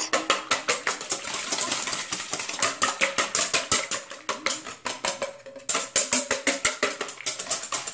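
Wire whisk beating eggs in a stainless steel bowl: rapid, even metallic clicking of the wires against the bowl, several strokes a second, with a short pause a little past halfway.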